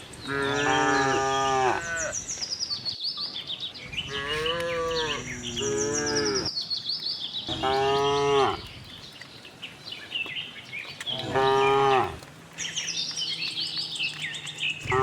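Cows mooing: four long moos, each one to two seconds, coming every three to four seconds, with another beginning at the very end. Birds chirp throughout.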